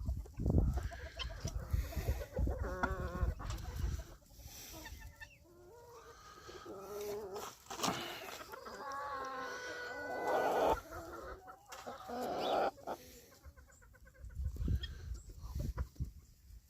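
A flock of domestic chickens clucking and calling, many short overlapping calls, some warbling.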